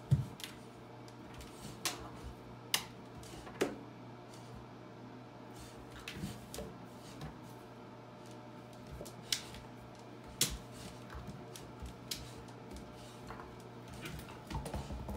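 A Rottweiler puppy's claws and paws clicking and scrabbling on the hard surface of an empty acrylic bathtub: irregular sharp taps, some louder than others, over a low steady hum.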